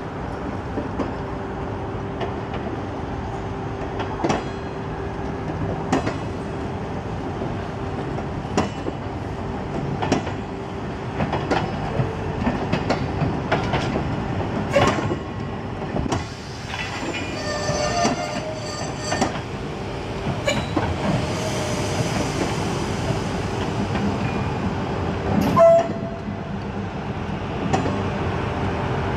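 Suburban train running on the track: a steady rumble and hum, with the wheels clicking over rail joints every second or two. Brief high tones sound about two-thirds of the way through and again near the end.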